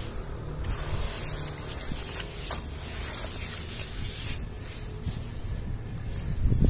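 A hand kneading and stirring wet sand in water in a plastic basin: gritty rubbing and crunching of the grains with wet squelches, and a louder low thud near the end.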